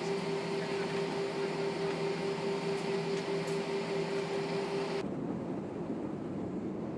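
Steady jet airliner cabin noise: engine hum and rushing air with a steady tone. About five seconds in it changes abruptly to a duller, lower rumble.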